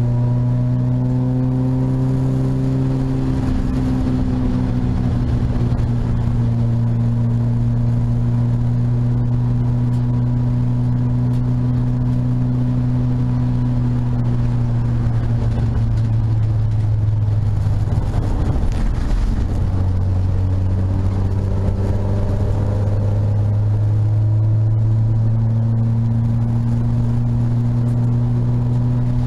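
Peugeot 205 GTi race car's four-cylinder engine heard from inside the cabin, running hard at a steady high pitch. About seventeen seconds in the engine note falls away for a couple of seconds under a rush of road and wind noise, then climbs back to a steady note.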